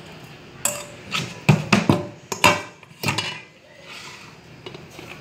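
About seven sharp metal knocks and clatters over roughly two and a half seconds: an aluminium colander banged against a metal cooking pot as it is shaken empty and put down.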